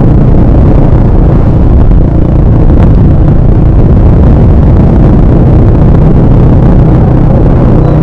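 TVS Apache RTR 160's single-cylinder four-stroke engine and exhaust running steadily while riding at a constant moderate speed, a loud, even low rumble with no revving.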